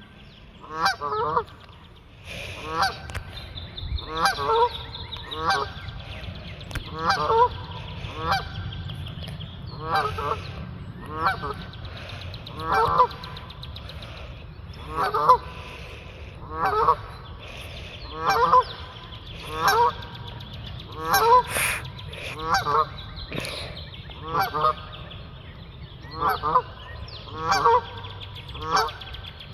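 Geese honking repeatedly, short calls roughly once a second with some coming in quick pairs.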